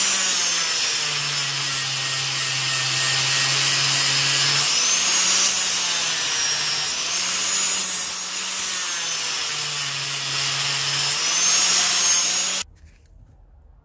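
Angle grinder grinding the steel head of a small lump hammer, its motor note dropping several times as it slows under load and picking up again between passes. It stops abruptly near the end.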